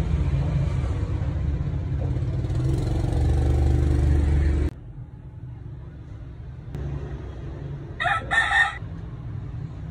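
A low, steady rumble that cuts off suddenly about halfway through, followed by quieter background noise and, near the end, a short, loud, pitched cry in two parts.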